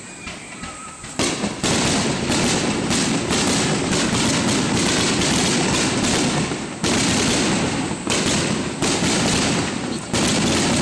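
Aerial fireworks shells bursting in a rapid barrage: after about a second of lower rumble, bangs follow one another in quick succession and often overlap, with especially loud bursts about two-thirds of the way through and near the end.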